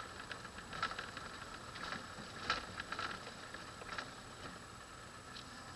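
Irregular rattles and knocks from inside a 4x4 jolting over a rough dirt track, with a faint vehicle running noise underneath. The sharpest knock comes about two and a half seconds in, and the clatter thins out near the end.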